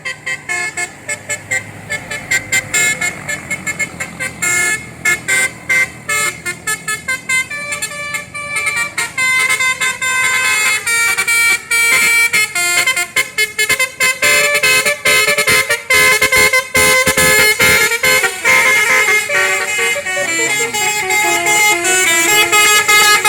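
Indonesian bus telolet (Basuri) multi-tone horn playing a tune of rapid, short honked notes that step between pitches, growing louder and more drawn out toward the end, with a few falling notes near the end.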